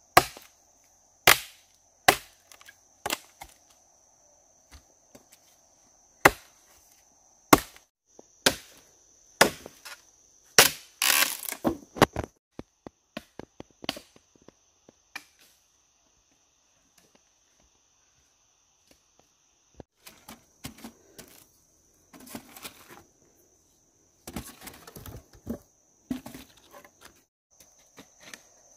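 A run of sharp chopping knocks on wood, about one a second at first, then a quick flurry near the middle, followed by softer rustling and scraping near the end. A steady high insect buzz goes on underneath.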